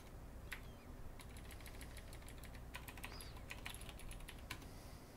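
Computer keyboard typing: a single keystroke, then a quick run of keystrokes from about a second in to about four and a half seconds as a terminal command is typed.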